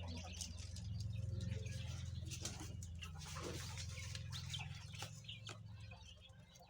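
Quail chirping with many short clicks and scratches, over a steady low hum.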